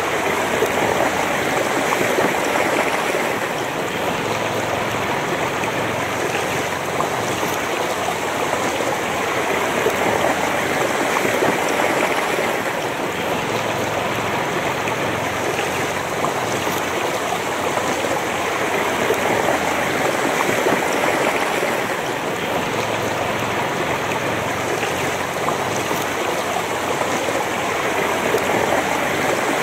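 Shallow, fast-flowing river running over a stony bed: a steady rush of water with gentle swells in level.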